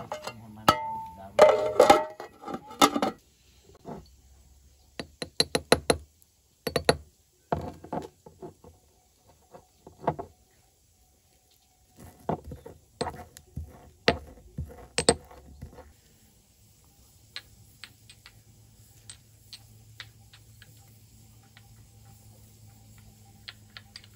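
Irregular clinks and knocks of cooking utensils, loudest in the first few seconds; in the later part, a wooden pestle tapping and grinding in a small ceramic mortar.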